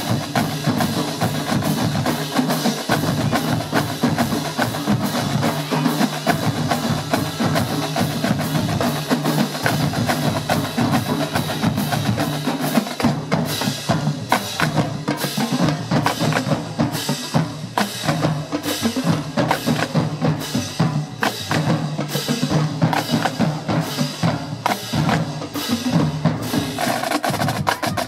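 Marching band drumline playing a cadence: snare drums, tenor drums and bass drums struck in rapid, dense rhythm.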